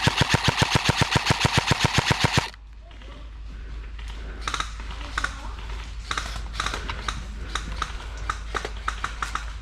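Airsoft gun firing a close, rapid full-auto burst, about eight shots a second, that stops abruptly after about two and a half seconds. It is followed by scattered quieter clicks and snaps.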